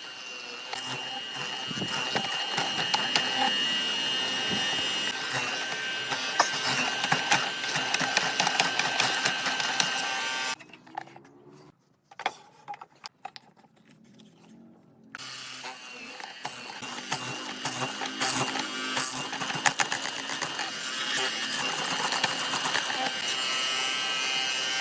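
Handheld electric power tool running with a steady whine and a rattling buzz. It stops about ten seconds in, and a few knocks follow in the pause. It starts again about five seconds later.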